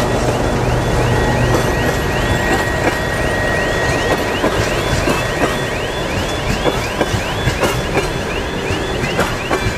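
Loaded gondola freight wagons rolling past, their wheels clacking over rail joints more and more often. The diesel locomotive's engine rumble fades out in the first second or two. Over it, a rhythmic electronic warning signal sounds as rising chirps about three times a second.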